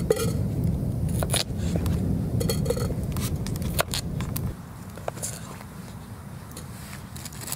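Knife cutting carrots on a wooden chopping board, with scattered sharp knocks and clicks as pieces go into a metal billy can. A low rumble runs under the first half and stops partway through.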